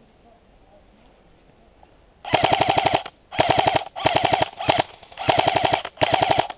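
M4-style airsoft rifle firing full-auto, a fast even rattle in six short bursts in quick succession, starting about two seconds in.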